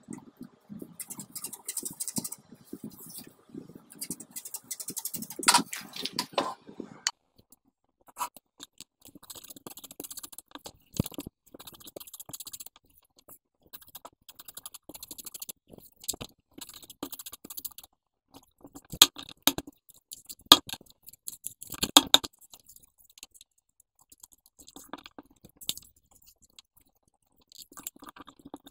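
Sheets of paper being handled on a wooden table: rustling, sliding and crackling, dense at first and then sparser, with a few sharp snaps as sheets are flapped and laid down.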